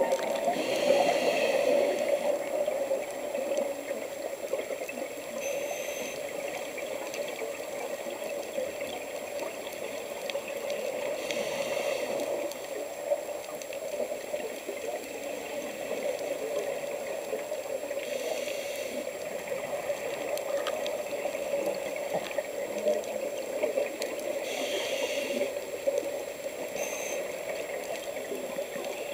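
Underwater sound picked up inside a camera housing: a steady muffled water rush, with a scuba diver's exhaled regulator bubbles hissing out four times at intervals of about six to ten seconds.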